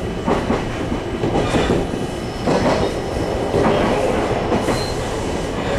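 JR Kyushu 813-series electric train running on the line, heard from inside the front car: a steady rumble of wheels on rail with repeated clacks over rail joints.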